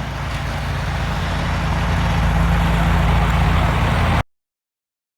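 Craftsman 30-inch snowblower's engine running steadily, growing a little louder, then cutting off suddenly about four seconds in.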